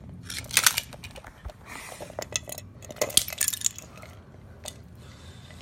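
Small loose metal and plastic parts of a broken toy robot clinking and clattering against a tile floor, in several short bursts of sharp clicks.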